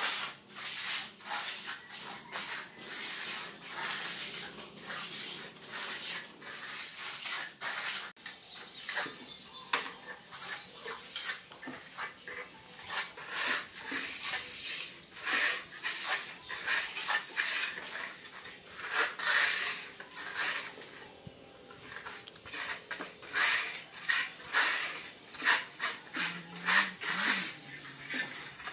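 Hand trowel scraping and rubbing over a fresh cement floor in repeated short strokes, working red colour into the surface to polish it.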